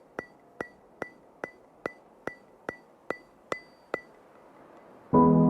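Evenly spaced metallic ticks, about two and a half a second, each with a short ringing tone; they stop about four seconds in. Soft piano background music begins near the end.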